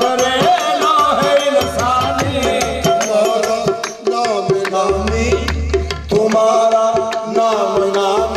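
Qawwali music: voices singing over tabla drumming.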